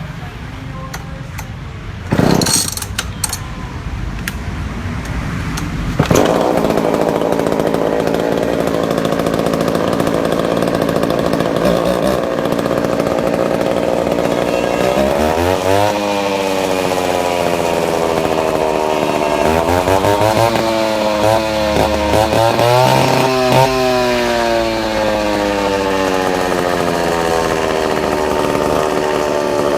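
Mikata concrete cutting saw's engine, after a brief loud burst about two seconds in, comes on suddenly about six seconds in and runs. Midway it is revved up and down several times, then it settles to a steady run.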